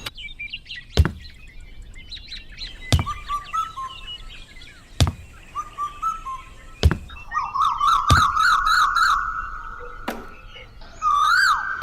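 Small birds chirping and calling, with a warbling call about halfway through and rising-falling calls near the end. Sharp knocks come about every two seconds.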